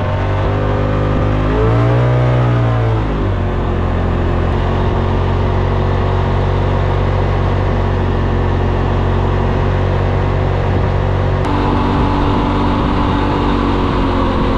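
Polaris RZR side-by-side's engine running while being driven off-road, revving up about a second in and easing back down a couple of seconds later, then holding a steady drone. The engine note shifts abruptly near the end.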